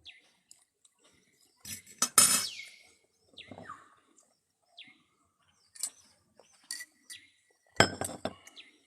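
Small birds chirping in short, falling calls. Two loud, brief clattering knocks break in, about two seconds in and again near the end.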